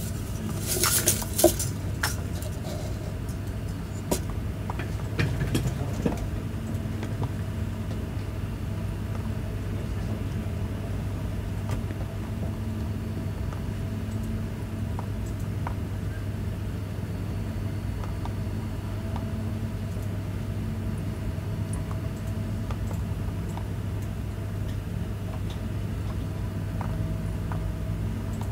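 A steady low hum with an even background hiss, broken by a few sharp taps and knocks in the first six seconds and occasional faint ticks after that.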